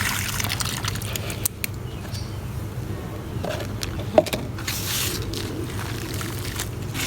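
Dry mud crumbling and breaking apart, scattered small crackles with one sharp snap about four seconds in, over a steady low hum.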